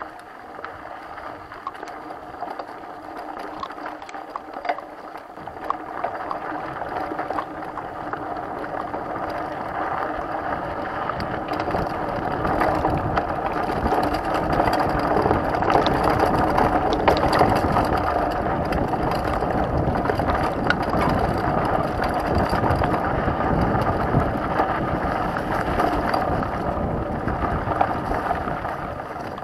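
Mountain bike rolling fast over a dirt forest trail: knobby tyres on dirt with chain and frame rattle, and a low wind rumble on the microphone. It grows louder over the first half as the bike picks up speed.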